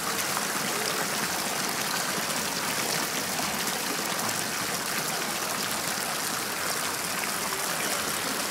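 Fountain water jets splashing steadily into a stone basin.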